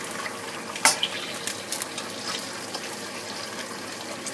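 Eggs sizzling in hot oil in a steel wok, with a sharp knock just under a second in and a few lighter clicks after it.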